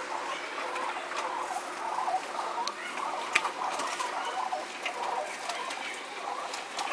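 Rock pigeons feeding on scattered seed: soft cooing mixed with frequent sharp taps of beaks pecking the hard ledge, one tap standing out about halfway through.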